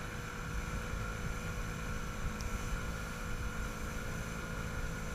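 Motorboat engine running steadily under way, with a rough low rumble of wind and water beneath it.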